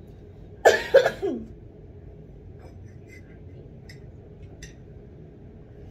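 A person's short vocal outburst about a second in, falling in pitch, then a few faint small clicks over low room noise.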